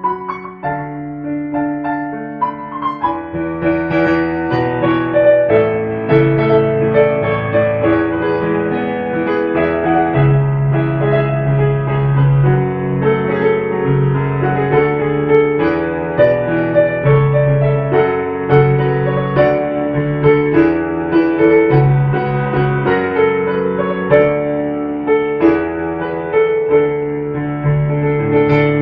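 Background instrumental music led by piano: a melody of held notes over sustained low bass notes.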